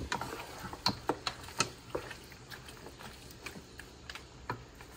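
A slotted spatula knocking and scraping against a pan as seasoned goat meat is stirred. The clicks are irregular, several in the first two seconds, then fewer.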